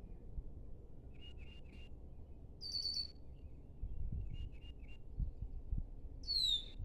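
Small birds calling: sets of three short chirps twice, a brighter rapid phrase about three seconds in, and a falling whistle near the end, over a low rumble of background noise.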